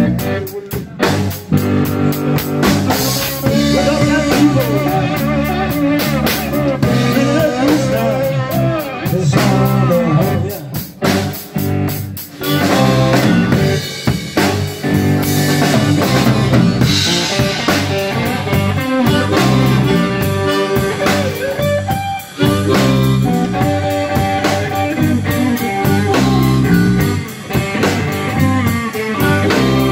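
Live blues band playing: a harmonica played cupped against a microphone, over electric guitar, bass guitar and a drum kit.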